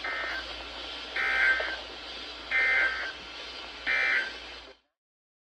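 NOAA Weather Radio SAME digital data bursts: four short, buzzy two-tone bursts about a second and a third apart over radio hiss, of the kind sent as the end-of-message code after a warning. The audio cuts to silence near the end.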